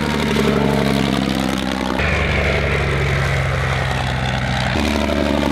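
Albatros D.Va biplane flying past, its Mercedes 200 hp straight-six engine running steadily. The engine note changes abruptly about two seconds in and again near the end.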